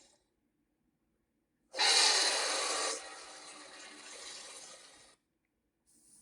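Varan's roar, a kaiju monster sound effect: a harsh, noisy roar starts abruptly about two seconds in, loud for about a second, then trails on more quietly for two seconds and cuts off. Another roar begins at the very end.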